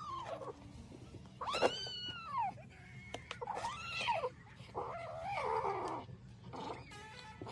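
A cat meowing repeatedly: four or five drawn-out meows, each rising and then falling in pitch.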